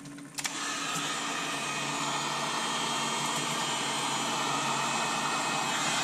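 Handheld heat gun switched on about half a second in and blowing steadily, warming a too-thick white acrylic paint and epoxy mix so that it thins and flows.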